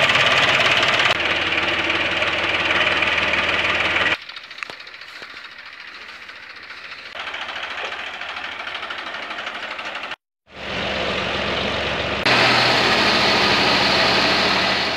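Zetor 3511 tractor's three-cylinder diesel engine running under the work of lifting hay bales with its forklift. The sound comes in several chopped segments with sudden jumps in loudness, is quieter for a few seconds in the middle, and drops out briefly about two-thirds of the way through.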